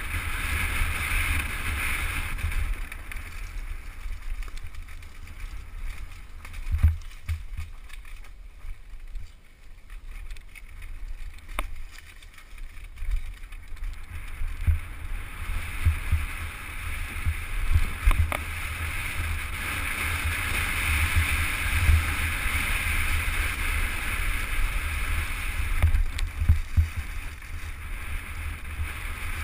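Downhill mountain bike descending a rough dirt trail: wind buffeting the camera microphone and a steady tyre-and-frame rumble, broken by a few sharp knocks and rattles as the bike hits bumps.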